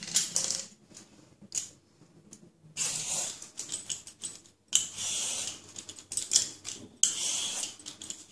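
Hand-held vegetable peeler scraping the skin off a snake gourd in several long strokes, about three of them loud, with small clicks between them.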